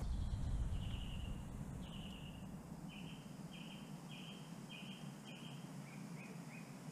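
A songbird singing: two falling slurred notes, then a run of five repeated notes at about two a second, ending with three softer, shorter notes. A low rumble in the first second is the loudest sound.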